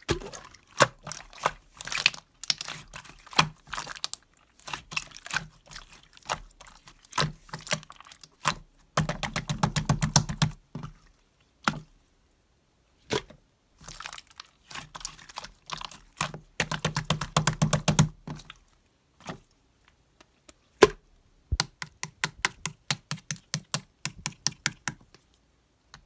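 Runs of quick, sharp clicks and taps, typing-like, with bursts of about ten clicks a second and brief pauses between runs.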